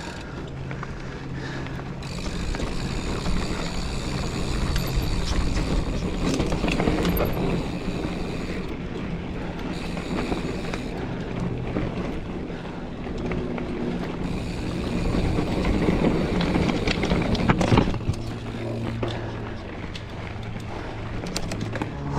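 Mountain bike rolling over a rutted dirt trail: steady tyre and trail noise with rattling from the bike, and a sharp knock about eighteen seconds in.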